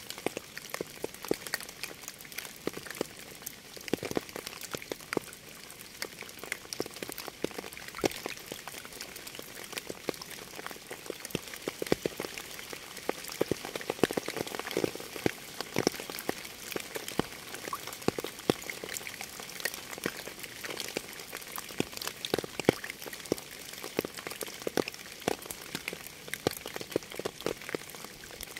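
Steady rain: an even hiss with many distinct drops ticking irregularly.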